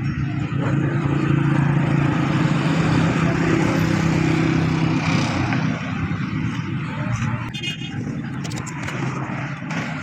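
A motor vehicle engine running, louder for the first five seconds or so and then easing off.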